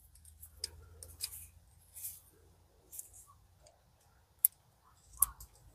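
Scattered small clicks and scrapes of a car battery's positive terminal clamp being worked loose on its post by gloved hands, with two sharper clicks in the second half.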